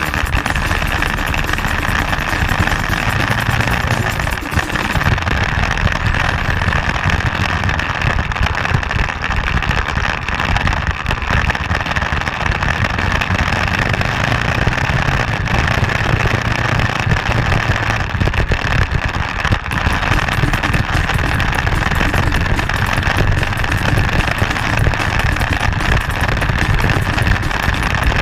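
Motorcycle riding at steady speed: engine running under a constant rush of wind noise on the bike-mounted microphone.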